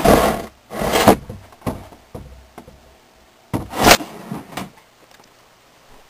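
A few loud rattling, scraping knocks, each about half a second long: one at the start, one about a second in, a smaller one just after, and another about three and a half seconds in.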